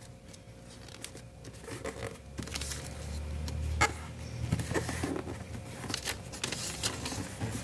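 A square of origami paper being folded and creased by hand: soft paper rustling and crinkling with scattered light taps, a low rubbing stretch around the middle as the fold is pressed flat, and one sharper click about four seconds in.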